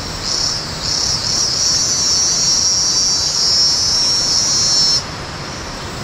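Cicada singing: a high buzz in short pulses that merge into one unbroken drone, cutting off suddenly about five seconds in.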